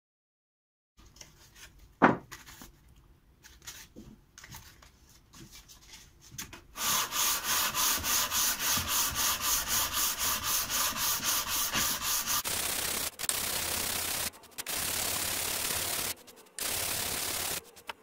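Hand sanding a wooden block with a sanding block. After a sharp knock about two seconds in, the scraping starts at about seven seconds as quick, even back-and-forth strokes, about three or four a second. Later it becomes steadier, with a few short pauses.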